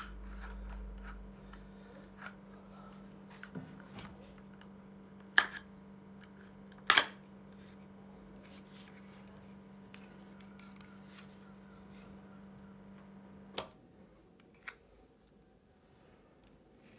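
Sharp clicks and knocks from an e-scooter battery pack's hard case and its plug being handled, two louder ones in quick succession about 5.5 and 7 seconds in. A steady low hum runs underneath and stops with a click about 13.5 seconds in.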